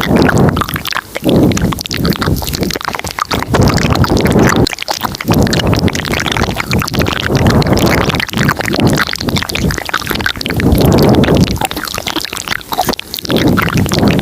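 Layered ASMR mouth sounds recorded very close to the microphone: many wet clicks and smacks over swelling, breathy low rumbles that come and go every second or two.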